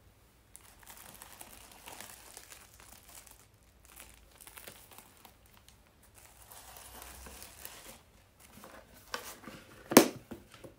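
Tissue paper and plastic wrapping crinkling in several spells as they are handled and pulled out of a cardboard box, with a single sharp knock near the end as the box is handled.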